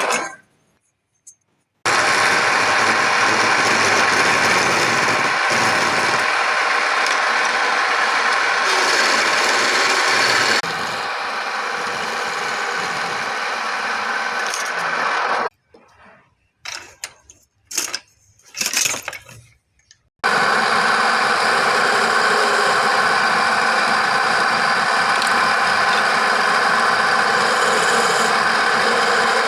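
Wood lathe running, with a turning tool cutting the spinning wood as a steady, dense mechanical noise. It starts after about two seconds of silence, drops a little about a third of the way in, and breaks off into short silences and bursts a little past the middle before running steadily again.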